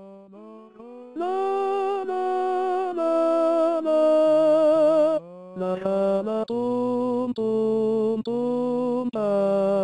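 Four-part choral arrangement of a zamba in slow 6/8, the voices holding chords on wordless syllables. It begins softly for about a second, then full chords come in, and in the second half the chords are repeated with short breaks between them.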